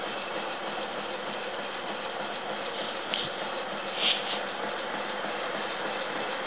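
Antique Stirling hot-air wall fan running, its hot-air engine and spinning blades making a steady mechanical whir. Two brief clicks come about three and four seconds in.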